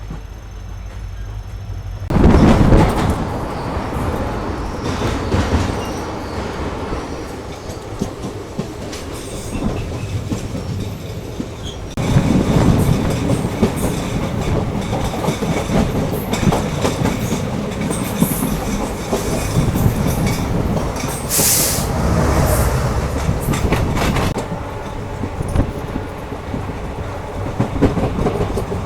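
Passenger express train running on the rails, wheels clattering over the track in a steady rumble. The noise comes in suddenly about two seconds in and grows louder again around twelve seconds, with a brief higher-pitched hiss or squeal a little after twenty-one seconds.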